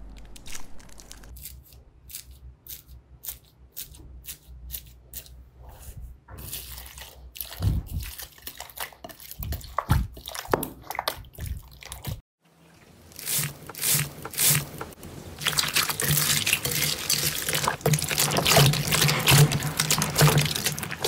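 Slime being squeezed and kneaded by hand: separate sticky clicks and small pops, then denser wet squishing. After a short break comes dense, loud crackling as bead-filled crunchy slime is squeezed.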